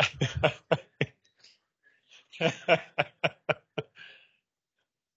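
A person's voice in short bursts: a quick run in the first second, then after a pause a second run of about six evenly spaced bursts.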